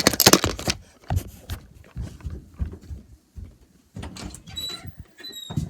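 Screwdrivers being put away: a run of knocks and clatter, with a few short high squeaks about four to five seconds in.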